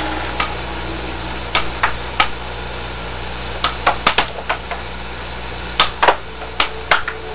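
Air hockey puck clacking against the mallets and table rails in irregular quick clusters of sharp knocks, over a steady low hum.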